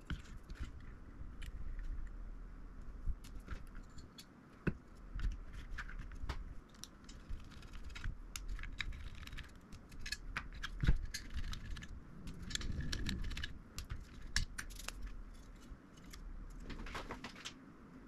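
Small parts and tools being handled during a graphics card teardown: irregular light clicks and metallic clinks of screws, screwdriver and card parts, over a low steady hum.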